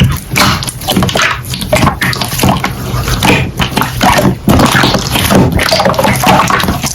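Slime being squished and pressed by hand: a dense run of irregular wet clicks and squelches.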